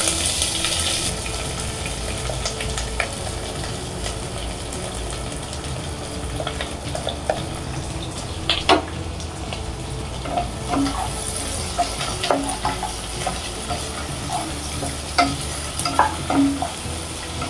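Chopped onions frying in hot mustard oil in a non-stick pot: a steady sizzle, loudest in the first second. From about halfway through, a utensil stirs them, scraping and tapping against the pot, with one sharper knock.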